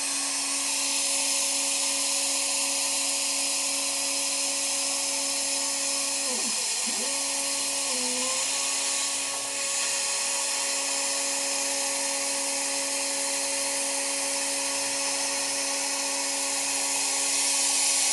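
Steering-rack spraying and sandblasting rig running: a steady hiss of air with an electric motor's steady hum. The hum sags in pitch briefly about six seconds in and again around eight seconds.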